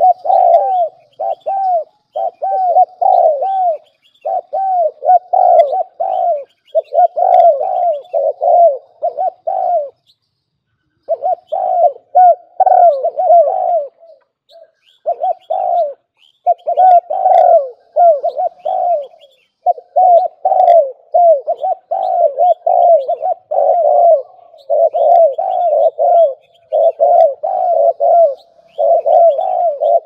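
Spotted doves cooing, their low coo phrases following one another with hardly a pause, broken off only briefly about ten and fourteen seconds in.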